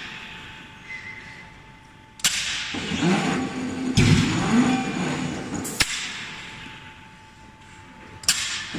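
Electric screw forging press striking a hot workpiece in its dies: four sharp metallic blows, roughly two seconds apart, starting about two seconds in. Each blow is followed by a wavering machine noise that dies away before the next.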